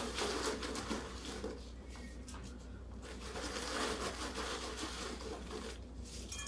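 Soft rustling and crinkling of a plastic zip-top freezer bag as hands pull out and break up pieces of red pepper.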